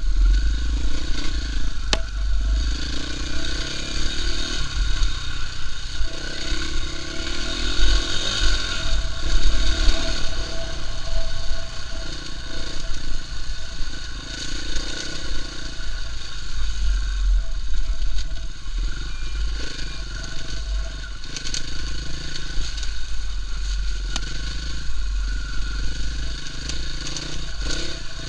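KTM EXC-F 450's single-cylinder four-stroke engine running as the trail bike is ridden over a rutted dirt lane, its note rising and falling with the throttle every second or two. A heavy low rumble sits under it, with an occasional sharp knock.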